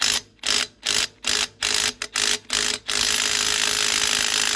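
DeWalt DCF894 1/2-inch cordless impact wrench hammering on a trailer lug nut: about seven short trigger bursts, then held on continuously from about three seconds in. It is set to tighten rather than reverse, so the nut does not come off.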